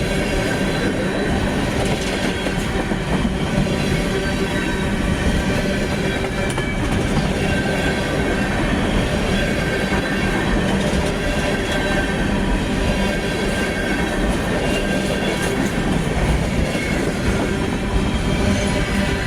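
Union Pacific coal train's cars rolling past, a steady loud rumble of steel wheels on rail, with faint high thin tones from the wheels.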